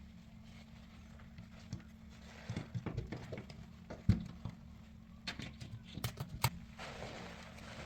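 Sponge loaded with soap paste being squeezed and handled: irregular squishes and crackles, a sharp knock about four seconds in, and a run of quick clicks shortly after.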